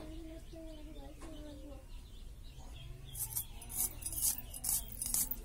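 A knife blade scraping in short, sharp strokes, about two a second, from about three seconds in, as garlic cloves are peeled against it. Before that, a wavering pitched call.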